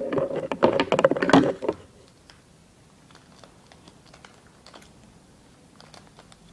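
Plastic toy packaging being crinkled and torn open by hand: a dense spell of crackling for about the first two seconds, then only faint scattered ticks.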